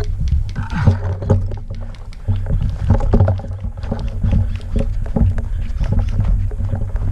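Heavy wind rumble on the camera microphone, with irregular footsteps, scuffs and clicks of gear as the player moves quickly over dry dirt and brush.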